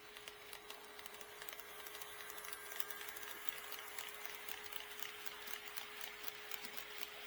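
HO scale model train running on KATO Unitrack, its wheels clicking over the rail joints, growing louder as it comes closer, with a faint steady hum underneath.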